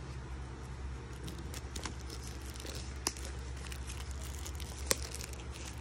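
Fingers scraping, rubbing and tapping on a white cardboard AirPods Pro box while working its tight lid loose, with small scratchy handling sounds and two sharper clicks about three and five seconds in. A steady low hum runs underneath.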